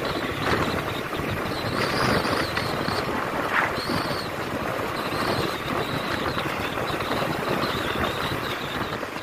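Steady rush of wind on the microphone of a moving motorcycle, mixed with the motorcycle's engine and tyre noise.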